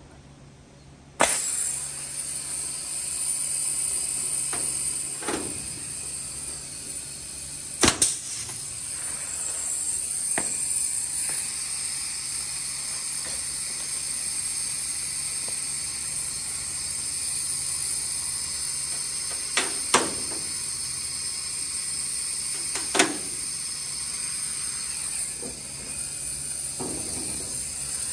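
Pneumatic rivet puller's air hissing steadily, starting suddenly about a second in, with several sharp snaps as rivets are set in the aluminium flap's leading edge.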